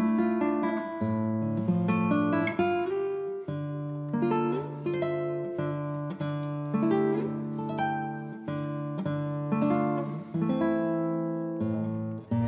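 Background music: an acoustic guitar plucking a gentle melody, note after note.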